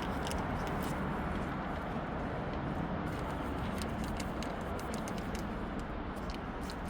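Steady outdoor background noise with many small, irregular clicks and crunches over it.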